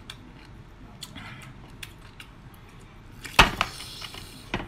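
Close-miked sounds of eating a raw geoduck siphon: light mouth clicks, then a loud sudden mouthful sound about three and a half seconds in, and a shorter sharp one near the end.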